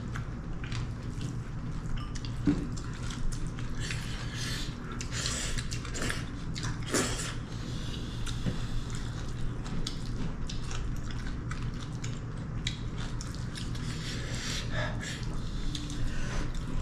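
People eating a meal: chewing and mouth sounds with small, irregular clicks and smacks of food and dishes, over a steady low hum.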